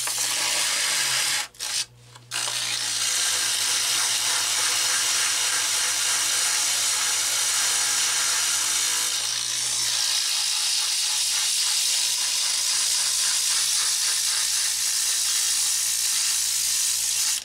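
Coarse sandpaper rasping steadily against the fan motor's shaft to smooth down a jagged, rough spot, with a brief break about a second and a half in and a sudden stop at the end. A low electric hum from the fan motor runs underneath.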